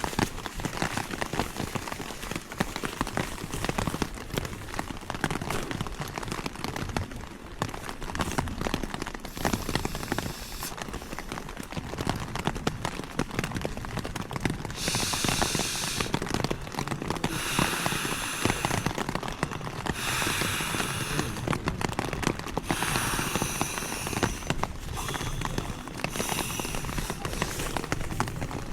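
Rain pattering steadily on a tent, a dense crackle of drops. From about halfway in it is broken by several separate stretches of louder rustling hiss, each about a second long.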